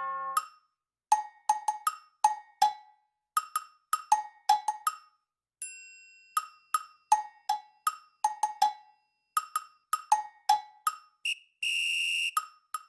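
Background percussion music: a brisk pattern of short, sharp knocks at two pitches. A ringing tone sounds about six seconds in and fades, and a short buzzy tone is held for under a second near the end.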